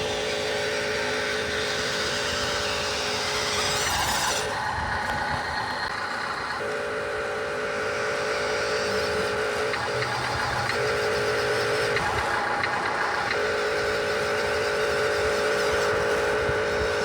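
Radio-controlled truck running, with a steady whine that comes and goes in stretches of a few seconds as it drives and pauses.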